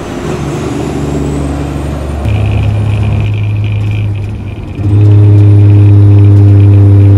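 Semi truck's diesel engine with an S400 VGT turbo running steadily; about two seconds in it grows louder, and about five seconds in it jumps to a much louder, steady drone as the engine brake is engaged.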